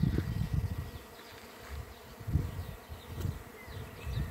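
A swarm of honeybees buzzing around a branch where they have clustered, with irregular low rumbles underneath.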